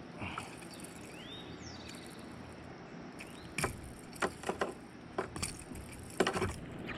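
Steady outdoor background noise with a bird's short chirping calls early on, then a handful of sharp clicks and knocks over the second half.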